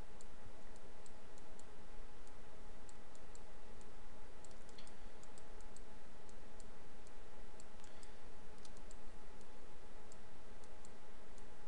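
Computer mouse clicking irregularly: short, light clicks, several in quick succession at times, over a steady background hiss with a faint hum.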